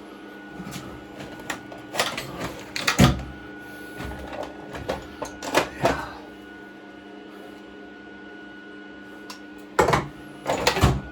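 Tools and workshop items being handled and set down: a series of irregular knocks and clatters, loudest about three seconds in and again near the end, over the steady electrical hum of a switched-on MIG welder.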